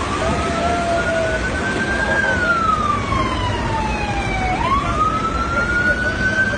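An emergency vehicle siren wailing in slow sweeps: its pitch climbs for about two seconds, falls for about two, then climbs again about halfway through. A steady rushing noise lies underneath.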